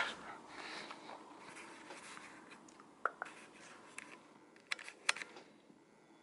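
Faint handling noise: soft rustling, then a few small sharp clicks and taps, roughly one about three seconds in, one about four seconds in and two close together near five seconds.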